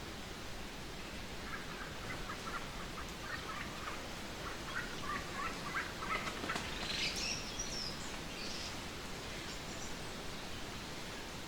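Trade wind blowing as a steady rushing noise. About a second and a half in, a bird calls over it in a rapid run of short notes, followed by a higher, curving call a few seconds later.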